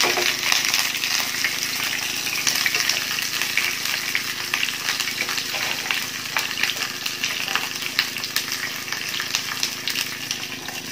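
Tilapia pieces frying in hot oil in a pan: a steady sizzle with dense crackling and spitting throughout.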